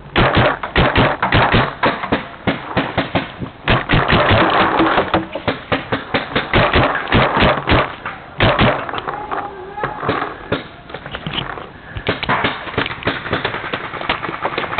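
Tippmann A5 paintball marker firing rapid strings of shots, several pops a second, in near-continuous bursts for about eight seconds, then more scattered shots.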